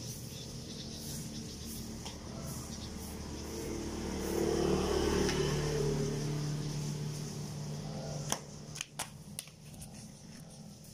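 A vehicle engine passing on the road, its steady hum swelling to its loudest around the middle and fading away. Before it come faint broom strokes on concrete, and later a few sharp clicks and knocks as the phone filming is handled and picked up.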